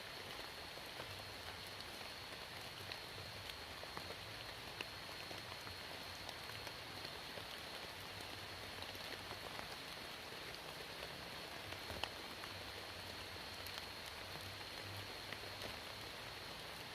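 Steady rain falling, with scattered sharp taps of individual drops landing close by. A thin, steady high-pitched whine runs underneath.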